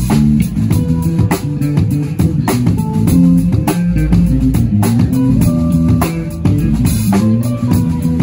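A live band playing through a PA speaker: a drum kit keeping a steady beat under an amplified guitar.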